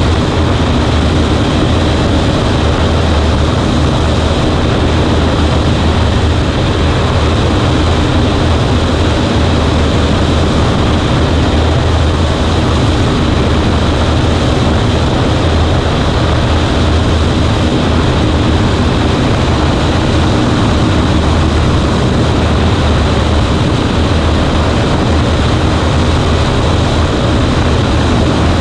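Cessna 140A's piston engine and propeller running steadily, a loud constant drone with no change in pitch.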